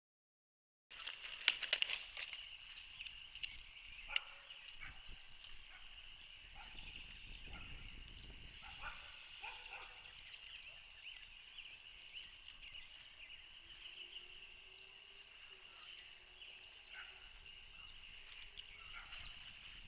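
A steady chorus of frogs peeping, high-pitched, cutting in about a second in, with a few sharp clicks around two and four seconds in.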